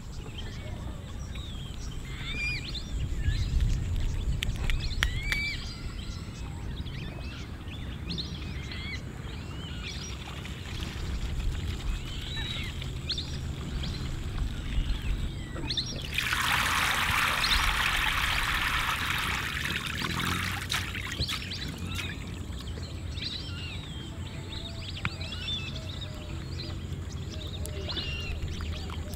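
Small birds chirping throughout over a low rumble, with water poured in a stream onto leafy greens in a steel bowl for about four seconds past the middle.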